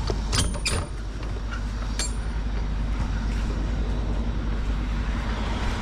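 Steady low rumble of an idling truck, with a few short clicks and knocks in the first second and another about two seconds in.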